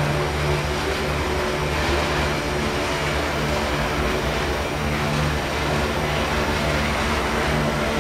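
GE Dash-9 diesel locomotive engine running with a steady low drone, over the rumble of loaded iron-ore cars rolling along the rails.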